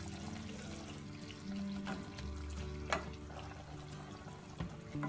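Sugar syrup sloshing softly as a wire-mesh strainer dips and turns jalebi in an aluminium pan, with two light clicks about a second apart, under background music with long held notes.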